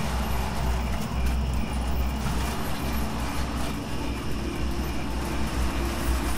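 O gauge model train running along the track: a steady low rumble.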